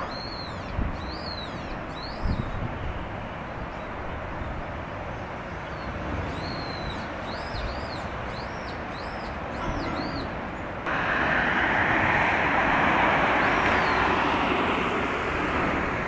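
Outdoor ambience: a small bird gives a run of short, high, arched chirps over a steady hiss of background noise. About eleven seconds in, the noise abruptly steps up louder and fuller.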